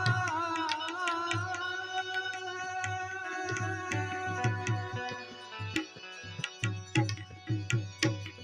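Harmonium holding and moving through sustained notes over a steady tabla rhythm, with the low drum strokes coming through more strongly in the second half.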